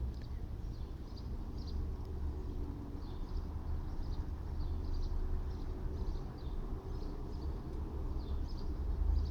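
Outdoor background: a steady low rumble with a faint engine-like drone, typical of distant traffic, while small birds chirp in short repeated calls.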